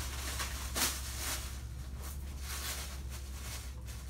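Plastic wrapping rustling and crinkling in irregular bursts as it is pulled and peeled off a boxed item, with the sharpest crinkle about a second in, over a steady low hum.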